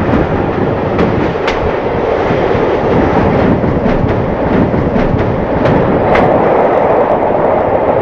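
Narrow-gauge steam excursion train running, heard from an open coach window: a steady rolling rumble of the coaches' wheels on the track, with a few sharp clicks as the wheels pass over rail joints and station points.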